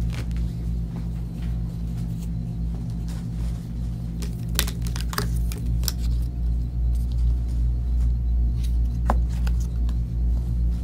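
Rustling and crinkling of clothing fabric being unfolded and shaken out, with a cluster of sharper rustles about four to six seconds in, over a steady low hum.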